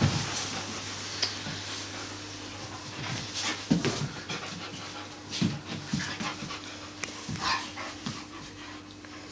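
A Siberian husky and a husky puppy play-wrestling: panting, with irregular short scuffles and rustles.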